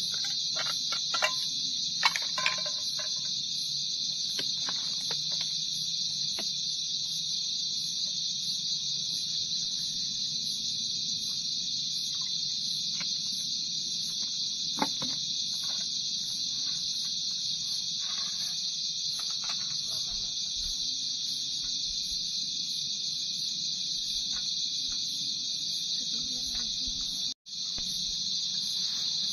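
Night chorus of crickets, a steady high-pitched trill, with a few light clinks of cooking pots and utensils in the first seconds and one about halfway. The sound briefly cuts out near the end.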